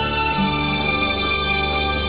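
Instrumental background music with long held notes at a steady level.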